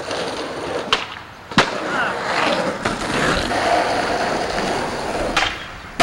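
Skateboard wheels rolling on concrete, with several sharp clacks of the board hitting the ground.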